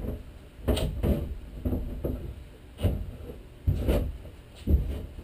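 Irregular knocks and thumps on the wooden teardrop trailer cabin, about half a dozen over a few seconds, each with a dull low thud.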